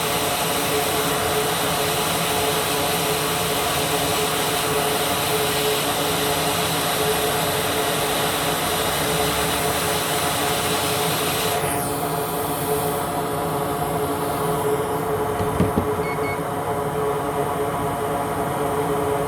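Hakko FR-810 hot air rework station blowing steadily on the motherboard: a steady blower hum with an air hiss. About twelve seconds in, the hiss drops away sharply while the hum keeps going.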